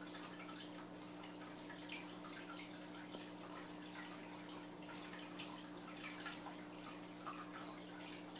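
Water dripping and trickling in a paludarium, many small irregular splashes, over a steady low hum from the tank's equipment.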